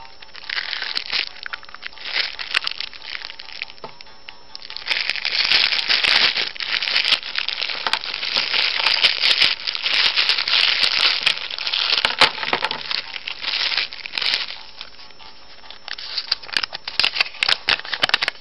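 Clear cellophane wrapper crinkling and crackling in bursts as toy pieces are unwrapped from a plastic surprise egg. The longest, loudest stretch is in the middle, and a paper leaflet rustles near the end. Faint background music plays underneath.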